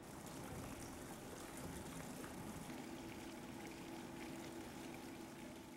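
Faint, steady trickling and splashing of water, as from a small stone courtyard fountain, with a low steady hum joining about three seconds in.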